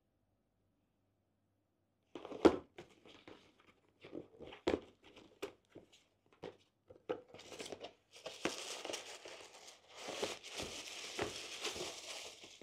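Cardboard shoe box handled and opened: scattered knocks and scrapes of the card, starting about two seconds in. From about eight seconds in comes a steady crinkling rustle of tissue paper wrapping as a hand reaches into the box.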